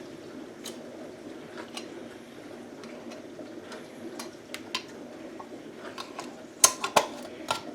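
Metal lids and screw bands being put on glass canning jars of pickles: scattered light clicks and clinks, with a few louder sharp clinks near the end.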